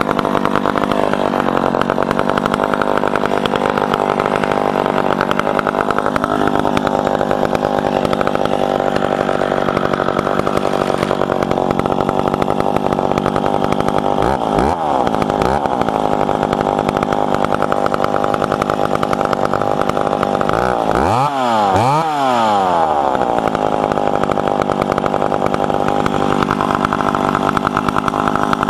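McCulloch Pro Mac 700 70.5cc two-stroke chainsaw running steadily. Its engine pitch rises and falls briefly around the middle and again about two-thirds through.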